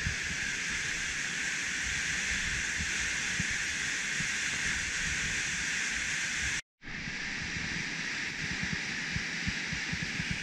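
Waterfall plunging into a rock pool: a steady hiss of falling water that cuts out briefly about two-thirds of the way through, then resumes.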